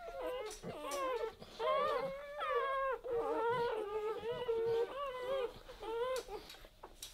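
Newborn Weimaraner puppy crying: a string of high, wavering squeals and whines that rise and fall in pitch, with short breaks, tailing off near the end.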